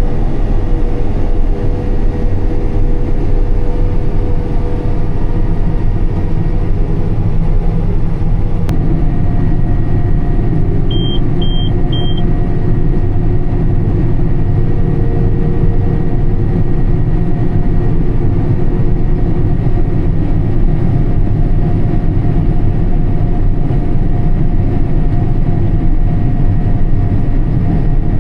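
Combine harvester running steadily while cutting wheat, heard inside the cab: a loud, even engine and machinery drone. Three short high beeps sound about eleven seconds in.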